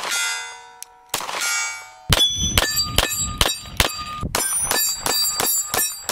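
Pistol shots hitting steel plate targets, each hit making the steel ring. Two single shots with long ringing near the start and about a second in, then a fast string of shots and clanging hits, about four or five a second, from about two seconds in.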